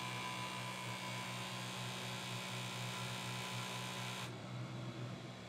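Creality Falcon 2 Pro enclosed laser cutter running while it cuts cork: a steady machine hum with a hiss over it. The hiss drops away about four seconds in, leaving a quieter hum.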